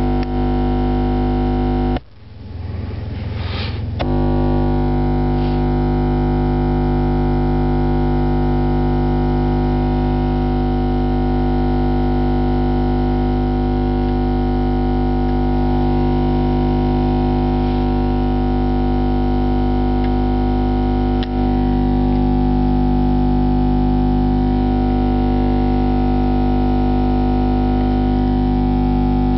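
A steady 50 Hz sine-wave test tone played through a car audio amplifier and subwoofer, a loud, buzzy drone with many overtones. It cuts out for about two seconds near the start, then resumes.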